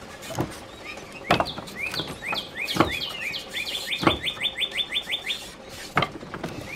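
Small birds chirping: short rising chirps scattered through, with a fast run of about ten in the middle. About five sharp taps are spaced through it, fitting thin white craft strips being set down on a toy trailer.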